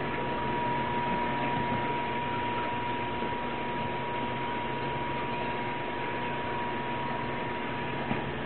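Steady hiss and low electrical hum with a constant thin high whine from running aquarium equipment, and a single faint tap near the end.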